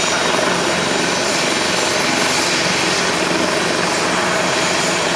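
Helicopter running close by: loud, steady rotor and turbine noise.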